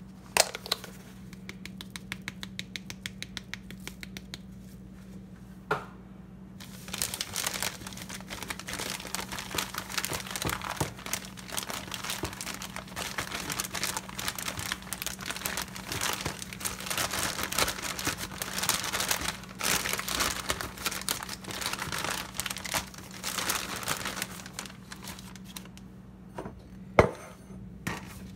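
Zip-top plastic bag of flour and seasonings crinkling as it is shaken and worked by hand to mix the coating, a dense crinkling for most of the time. Before that, a few seconds of light rapid ticking, and a sharp click near the end.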